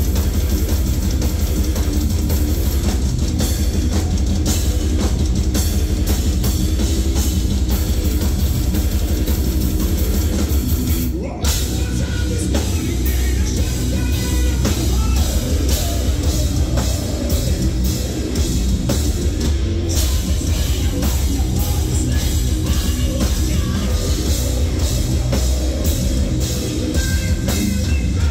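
Heavy metal band playing live through a club PA, with distorted electric guitars and a pounding drum kit, heard from the crowd. The band drops out for a split second about eleven seconds in, then comes back in, with a voice singing over it in the second half.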